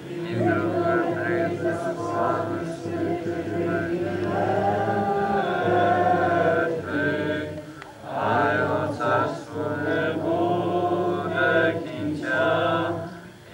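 Group of voices singing Eastern-rite liturgical chant in long, held phrases, with a short break about eight seconds in and again near the end.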